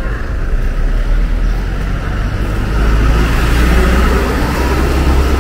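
Road traffic: a vehicle's low engine rumble with tyre noise, swelling louder about halfway through as it passes close by.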